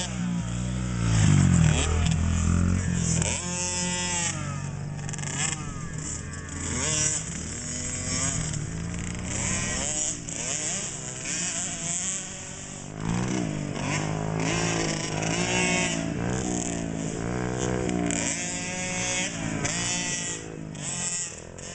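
KTM 50cc two-stroke dirt bike engines revving up and falling back again and again as they race around a motocross track.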